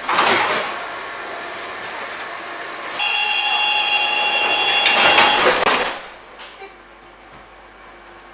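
Siemens-AEG Athens Metro Line 1 train: a loud rush of noise at the start, then steady running noise. About three seconds in it grows louder and steady whining tones join it. A clatter of sharp knocks comes near the end, and then it suddenly drops away.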